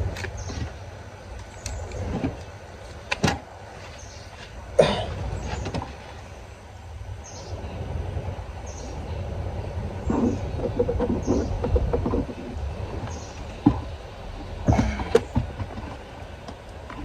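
Scattered knocks and clicks, about a dozen, the loudest near 3, 5 and 15 seconds in, over a low steady rumble, consistent with hands and parts being handled around a car.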